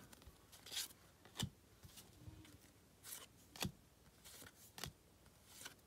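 Baseball trading cards being flipped through by hand, each card slid off the stack with a soft, faint swish or click. There are about seven of them, spaced roughly half a second to a second apart.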